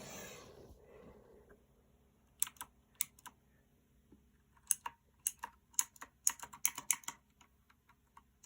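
Mechanical keyboard with clicky Outemu Blue switches being typed on: a soft rustle at first, then a few sharp keystroke clicks about two and a half seconds in and a quicker run of clicks in the second half.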